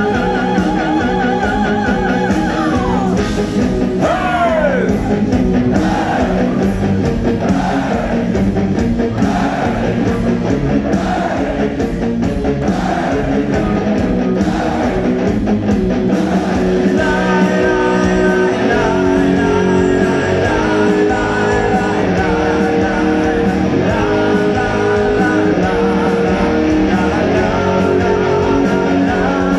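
Symphonic metal band playing live: singing over distorted guitars and drums. A long downward slide in pitch comes about four seconds in, and long held sung notes come in from just past halfway.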